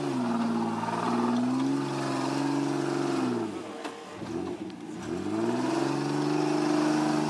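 Off-road 4x4's engine revving up and held at steady high revs, easing off briefly about halfway through, then revving up and holding again.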